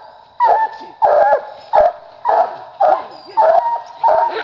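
Young coonhound pup barking steadily at the base of a tree, about two short, pitched barks a second: a hound treed, signalling that its quarry is up the tree.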